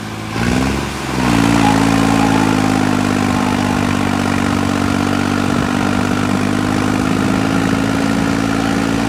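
A vehicle engine revs up about a second in and is held at steady high revs under load, as the Mahindra Thar and the tractor pull against each other in a towing tug-of-war.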